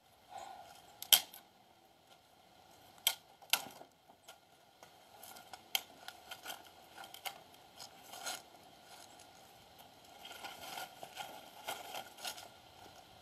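An axe chopping kindling on a wooden chopping block: several sharp cracks at uneven intervals, the loudest about a second in, with quieter knocks and rustling of the wood between.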